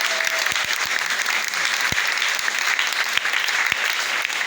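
Applause: many hands clapping in a dense, steady patter.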